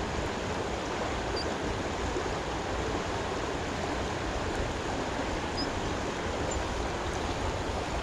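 Creek water running steadily over a rocky bed, an even rushing that holds through the whole stretch.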